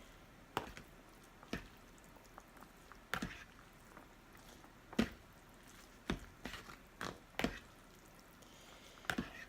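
Oily chow mein noodles being stirred to mix in a sauce: a string of short, wet squishes and clicks, about nine in all, spaced unevenly.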